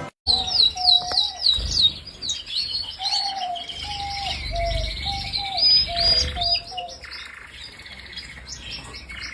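Small birds chirping in quick, repeated high twitters, with a lower repeated call of short notes joining in the middle.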